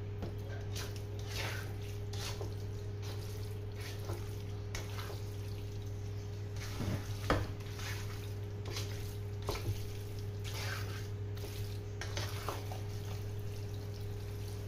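Metal fork stirring and tossing spaghetti in a creamy sauce in a black pan, with scattered scrapes and clicks against the pan, the loudest about seven seconds in. A steady low hum runs underneath.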